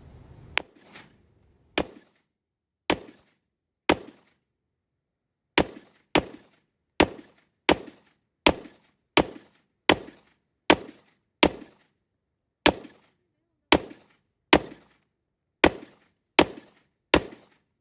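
Airsoft gun firing single shots, about nineteen sharp cracks, each with a short ringing tail, roughly one a second, with a longer pause about four seconds in.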